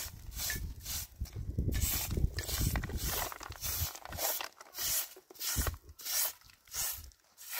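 Short straw hand broom sweeping dusty ground, a brushing swish with each stroke at about two strokes a second. A low rumble underlies the first half.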